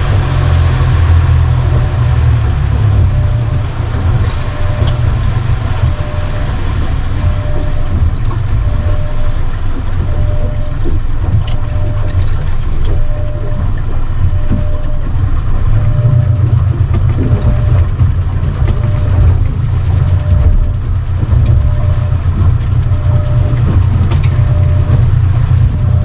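Outboard-powered Yamaha FAST26ex pleasure boat under way: a steady, loud low engine drone mixed with wind and water rush. A faint short tone repeats at a regular pace throughout.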